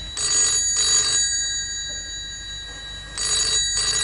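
Desk telephone ringing in the double-ring cadence: two short rings right at the start, a pause of about two seconds, then two more short rings.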